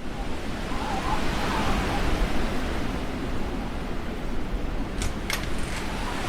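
Snowstorm wind blowing steadily, with a faint wavering whistle in it. Two sharp clicks about five seconds in.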